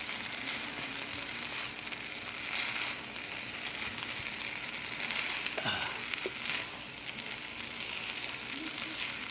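Chicken chow mein sizzling as it stir-fries in a non-stick pan, with a few short clicks and scrapes of tongs stirring it around the middle.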